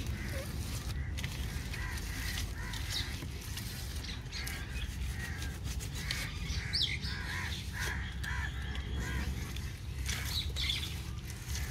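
Birds chirping and calling in scattered short notes, with one quick high whistle-like glide about seven seconds in, over a steady low background rumble.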